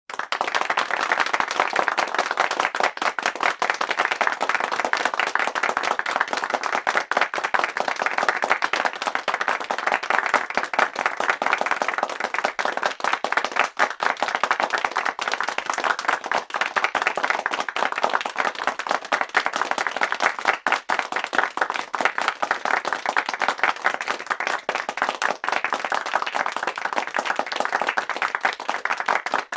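Applause from a small crowd: many people clapping steadily and continuously, the individual claps blurring into a dense patter with slight swells.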